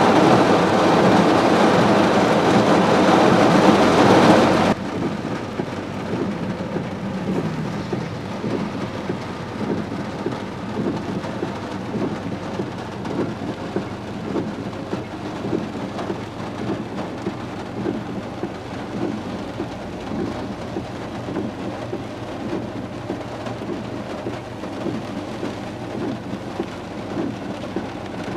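Heavy rain drumming on a car's roof and windshield, heard from inside the car, over a low steady hum. About five seconds in, the loud, full rush drops suddenly to a softer, irregular patter.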